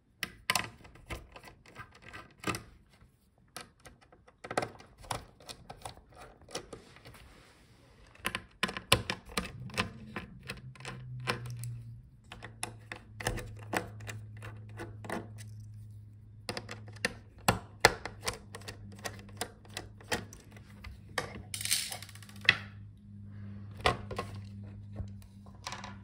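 Irregular clicks, taps and small knocks of a screwdriver working the metal hinge screws out of a laptop's hinges, with handling of the hard plastic case and metal hinge brackets. A brief louder scrape comes about three quarters of the way through, and a low steady hum sits underneath from about ten seconds in.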